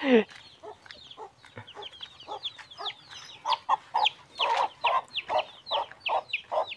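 Chickens clucking around a rural house: a steady run of short calls, two to three a second, getting louder about halfway through. A short falling whine, likely a dog's, comes right at the start.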